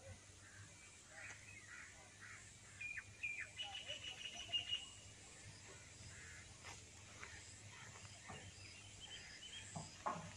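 Faint birds calling: a run of short high chirps and a brief high trill a few seconds in, then scattered single calls.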